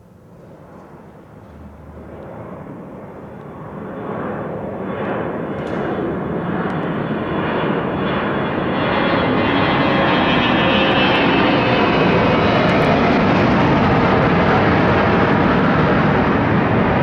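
Bombardier Global 5000 business jet, its two Rolls-Royce BR710 turbofans at takeoff power: jet noise that grows louder over about nine seconds, then holds loud and steady.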